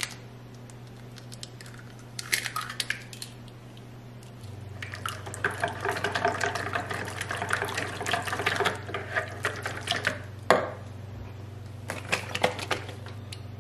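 Wire whisk beating an egg into melted butter in a bowl: a fast run of clicking, wet strokes for about four seconds in the middle. A few light clicks and taps come before it, and there is a sharp knock near the end as the whisk hits the bowl.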